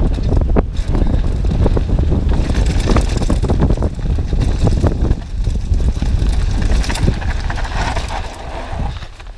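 A downhill mountain bike descending a dirt and gravel trail. Wind buffets the action-camera microphone as a heavy low rumble, over tyre noise and frequent sharp rattles and knocks from the bike.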